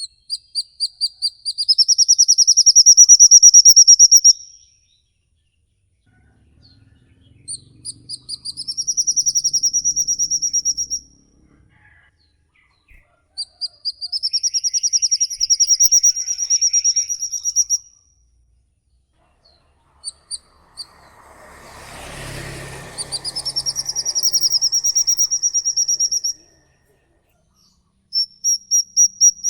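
Songbird giving a long 'ngikik' trill over and over: each phrase opens with a few separate high notes that speed into a fast, even trill rising slightly in pitch and lasting three to four seconds, with pauses of two to three seconds between them. A short rustling noise comes in about two-thirds of the way through.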